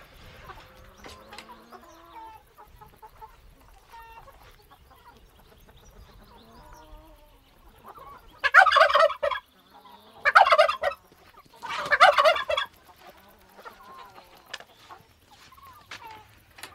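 Chickens in a pen clucking and calling softly, then three loud, harsh, roughly one-second calls from a bird about halfway through, a second and a half apart.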